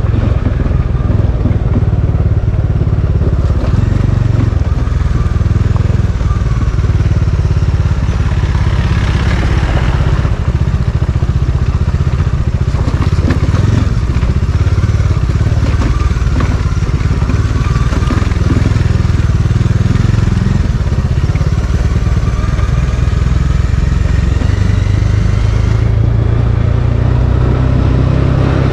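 A vehicle engine running on the move, its pitch rising and falling gently, over a loud steady low rumble.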